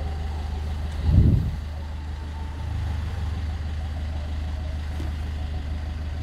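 Car subwoofer playing a steady low bass test tone, getting a little louder partway through as the amplifier gain is turned up. There is a short thump about a second in.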